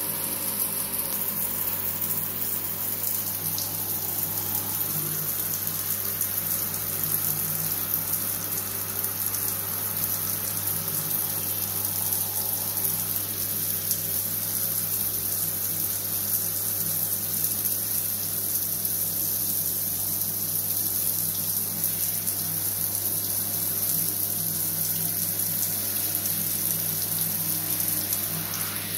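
Shower spray running steadily, water hissing and pattering onto a tiled shower floor and a wet dog, with a steady low hum underneath.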